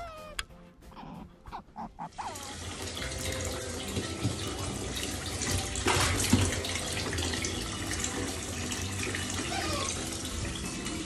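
Running water in a tiled bathroom: a steady rush of water from a shower hose starts about two seconds in and carries on to the end. Before it come a couple of short animal calls.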